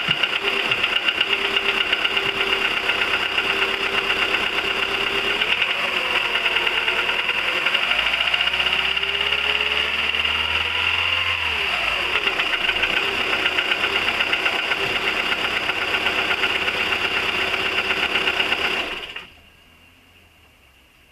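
1999 Volkswagen 1.4 16V petrol engine running with a fast, steady ticking, which the owner suspects comes from the oil pump. The engine speed rises and falls in the middle, and about 19 seconds in the engine is switched off and the sound cuts out.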